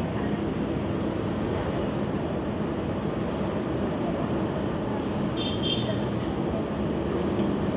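New York City subway train running steadily along the platform, a dense, even rumble of wheels on rail, with a brief high squeal about five and a half seconds in.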